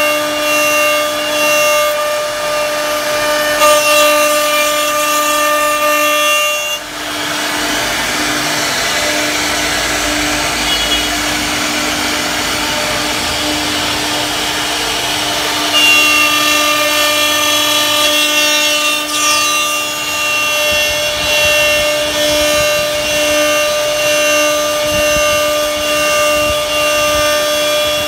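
CNC router carving a relief pattern into a wooden door panel: a steady high spindle whine over the rasp of the bit cutting wood. About seven seconds in, the whine drops back and leaves mostly cutting noise, then it returns strongly about sixteen seconds in.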